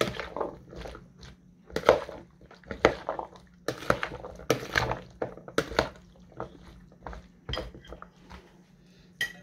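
Metal spoon stirring diced raw fish, cucumber, tomato and onion in a plastic bowl: irregular clicks and scrapes of the spoon against the bowl, with the wet crunch of the chopped pieces turning over.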